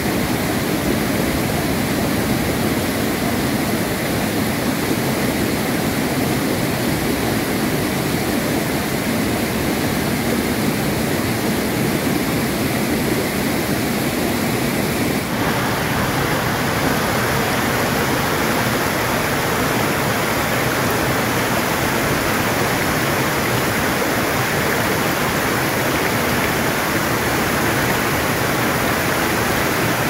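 Steady rush of a mountain waterfall falling about 15 m through rocks. The sound turns brighter and hissier about halfway through.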